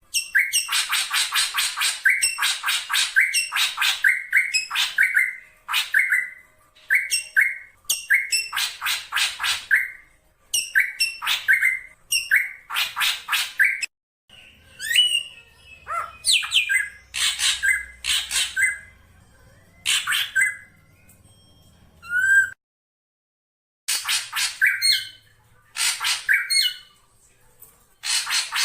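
Black drongo calling: harsh, rasping squawks in quick runs of several notes, with pauses between runs and some thinner whistled notes in the middle. The sound cuts out completely for a moment about two-thirds of the way in.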